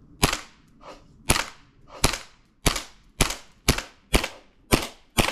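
Green-gas airsoft pistol fired nine times in a steady string, roughly two shots a second, each shot a sharp report with a short ring after it.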